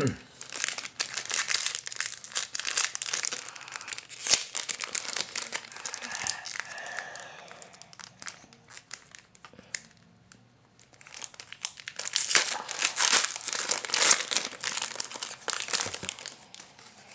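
Foil trading-card pack wrapper crinkling and tearing as a pack is opened by hand, in two loud stretches: one over the first few seconds and another from about twelve seconds in, quieter in between.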